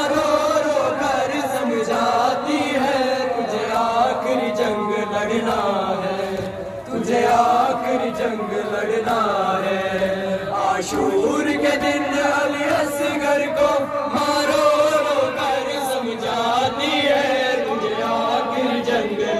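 Male voices chanting an Urdu noha, a Shia lament, in a steady melodic recitation.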